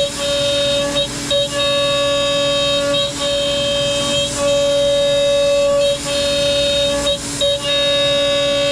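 CNC router spindle running at a steady high whine while milling ash, with a hiss of chips and air. The pitch holds steady, and the sound dips briefly every second or so as the cutter changes direction between passes.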